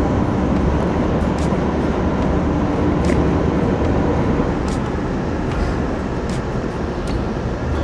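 Car driving along a road: steady road and engine noise.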